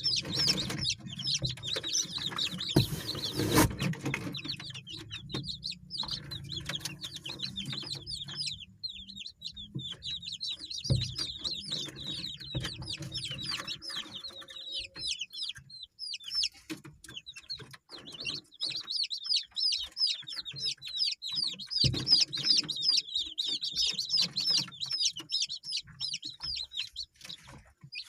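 A flock of Indonesian village chickens (ayam kampung) calling: many rapid high peeps overlapping, with clucking. There is a brief thump about three seconds in.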